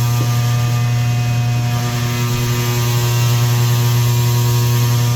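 Electric drive motor of a Katool KT-T800 tire changing machine running steadily under load, turning the turntable as a motorcycle tire bead is worked onto the rim. It makes a loud, even hum with a strong low tone.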